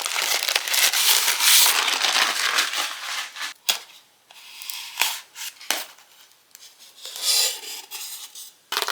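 Plastic packaging crinkling and tearing as a parcel is opened by hand: a long stretch of dense rustling, a few sharp clicks, then another short burst of crinkling near the end.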